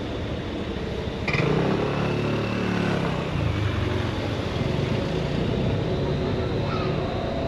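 Steady city street traffic, with a motor scooter's engine starting up loudly close by about a second in as it pulls away, then fading over the next couple of seconds.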